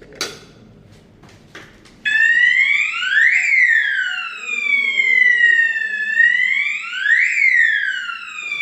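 Fire alarm sounder of a Ravel fire alarm system set off from a manual call point. A sharp click comes near the start, and about two seconds in the sounder starts a loud, wailing sweep: a quick rise in pitch and a slower fall, repeating about every four seconds.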